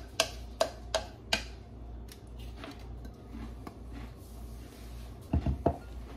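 Wooden spoon knocking and scraping against a ceramic mixing bowl as a wet shredded-zucchini mixture is scraped out into a parchment-lined baking dish: four sharp taps in the first second and a half, then soft scraping. Near the end come a few heavier knocks, the loudest sounds, as the bowl is set down on the counter.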